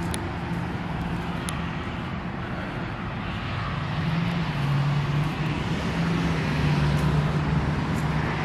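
Steady road traffic noise from a nearby road, rising a little about halfway through.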